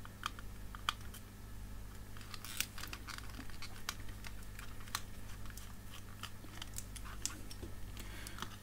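Scattered small clicks and crackles of fingers handling a plastic LCD monitor housing and its adhesive tape, over a low steady hum.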